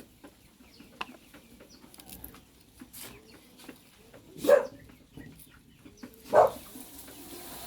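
Two short, loud animal calls about two seconds apart, the first about four and a half seconds in, over faint scattered clicks and knocks.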